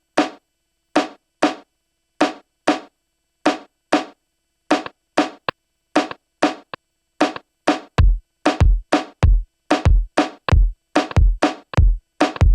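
Reggaeton drum pattern from an Akai MPC One drum machine: crisp, separate drum hits in a repeating pattern with silence between them. About eight seconds in, a deep bass kick joins on the beat.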